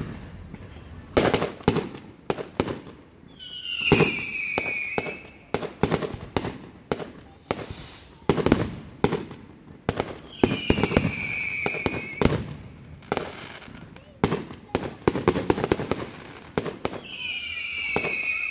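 Aerial fireworks display: a rapid string of shell bursts and sharp reports. Three times, about seven seconds apart, a high whistle falls in pitch over about a second and a half.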